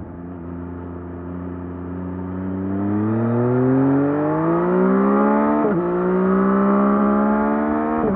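2024 Yamaha MT-09 SP's 890 cc inline-three engine, on its stock exhaust, accelerating up through the gears. The engine note rises steadily for several seconds, drops with a quick upshift a little before halfway, climbs again, and drops with another shift near the end.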